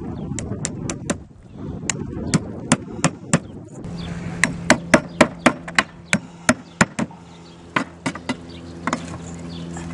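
Hammer driving 10-penny nails through a ridge vent into the holes of flat roof tiles: light taps at first, then a quicker run of sharp strikes about halfway through, and a few more near the end.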